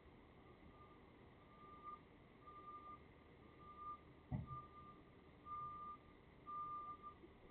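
Tanker truck's reversing alarm beeping faintly, one high tone about once a second. A single low thud about four seconds in.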